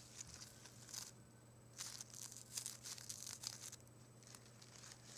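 Fingers rustling and crinkling the petals of a bouquet of carnations and alstroemeria in soft, scratchy bursts: one about a second in, then a busy run from about two seconds in to past three and a half, dying down after.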